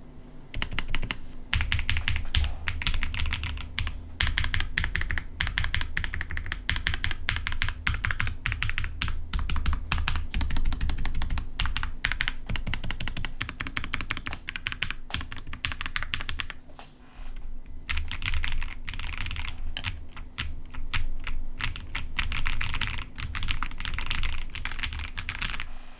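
Typing on a Fancy Alice 66 gasket-mounted Alice-layout mechanical keyboard with an acrylic case and Akko CS Silver linear switches: fast, continuous keystrokes with a short lull about two-thirds of the way through, stopping just before the end.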